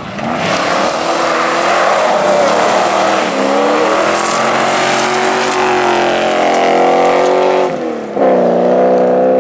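Classic rally car driven hard, its engine loud at high revs. The pitch dips and climbs again about three seconds in and once more near the end.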